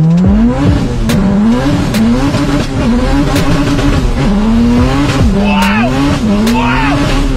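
Honda Civic EK3 hatchback's engine heard from inside the cabin, revving up and dropping back sharply about eight times as the car is driven hard, with sharp clicks in between.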